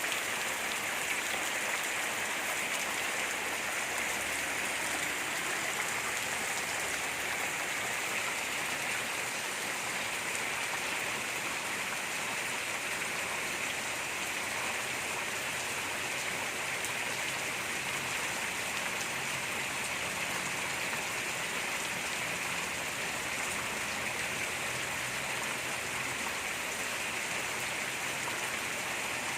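Steady rain falling, an even hiss of water that keeps up without a break.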